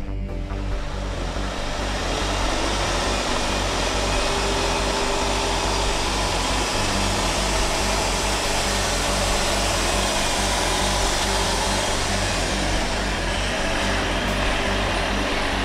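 Heavy-haul truck's diesel engine running steadily while pulling a multi-axle trailer carrying a huge chemical column at walking pace, with a continuous rumble of engine and tyre noise.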